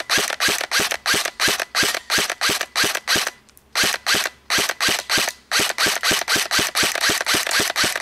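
KWA M4A1 airsoft rifle fitted with a G&P 190mm silencer, fired on semi-auto in quick single shots, about three to four a second, each a short sharp pop. The shots break off briefly about three and a half seconds in, then resume at the same pace.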